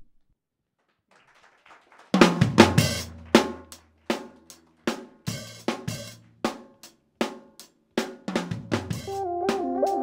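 Near silence, then a rock band comes in about two seconds in: drum kit hits with snare, bass drum and cymbals at about two to three strikes a second, over held bass guitar notes. Electric guitar joins near the end.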